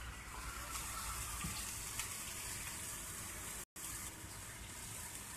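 Chopped kokoreç sizzling in clay roof-tile dishes: a steady, fairly faint hiss that cuts out for a moment partway through.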